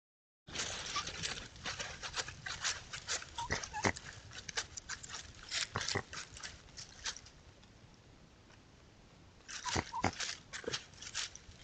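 Raccoons scuffling over rocks and dry leaf litter: a dense run of scratchy crackles, with a few short whimpering, chittering calls mixed in. It eases off for a couple of seconds, then a second burst of scuffling and calls comes near the end.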